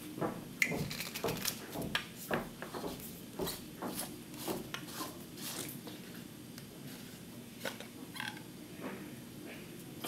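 Clear plastic calibration cup being unscrewed from a YSI sonde's sensor end: an irregular run of small clicks, scrapes and knocks of plastic parts being handled.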